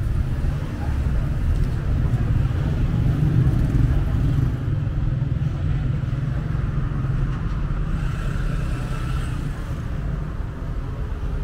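Road traffic noise on a city street: a steady low rumble of cars.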